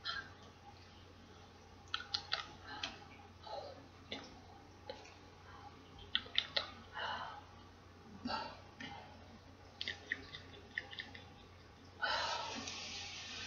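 Small clicks, taps and soft rustles from hands and a fleece jacket moving while signing, scattered irregularly over a steady low electrical hum. A louder stretch of rustling comes near the end.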